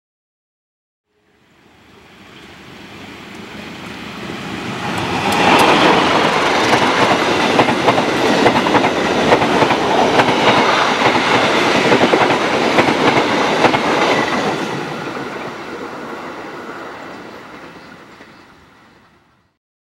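Passenger train hauled by a CC 201 diesel-electric locomotive passing at speed: the rumble fades in, rises sharply about five seconds in, and the wheels clickety-clack over the rail joints for about nine seconds as the coaches go by, then the sound fades away.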